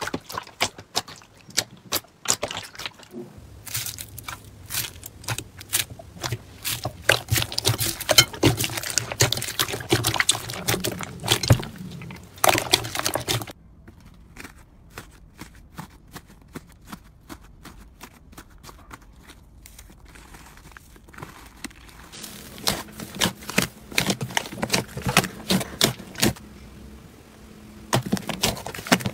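Hands squeezing and pressing slime, first a clear blue slime and then a fluffy sprinkle-topped slime: rapid sticky clicks and crackling pops as the slime is pulled and squashed, dense in some stretches and sparse in others.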